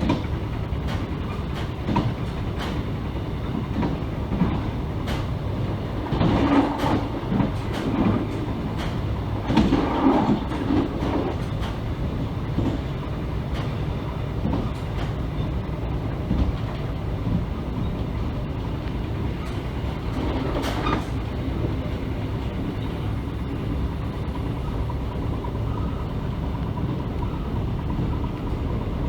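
Mugunghwa passenger train running along the track: a steady low rumble with scattered clicks of wheels over rail joints. The rattling gets louder for a stretch from about six to eleven seconds in, and again briefly around twenty seconds.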